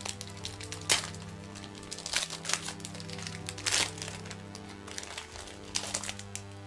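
Foil Pokémon booster pack wrapper crinkling, with several sharp crackles, as it is handled and opened. Background music runs underneath.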